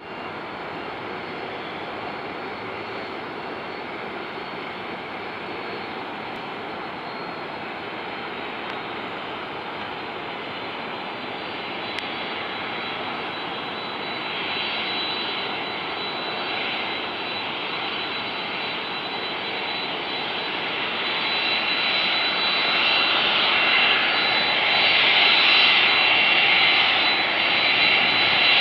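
Jet engines of a Boeing 767-300ER airliner at taxi power: a steady rushing hum with a thin high whine on top. It grows louder over the last third as the aircraft rolls closer.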